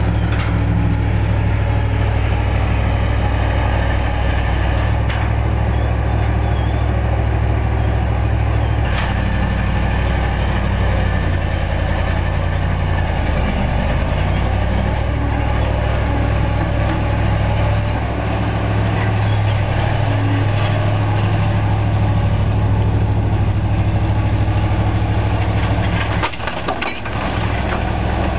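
Menck dragline excavator's engine running steadily as it drags and hoists its bucket, with a low drone whose note shifts a few times and dips briefly near the end.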